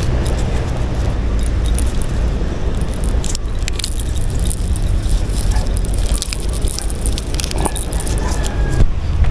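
Wind buffeting an action camera's microphone with a steady low rumble. From about three seconds in come light, scattered clicks and rattles of handled fishing tackle.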